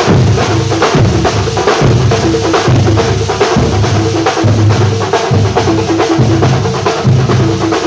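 Music with a fast drum-kit beat, bass drum and snare strokes, over a repeating low bass line.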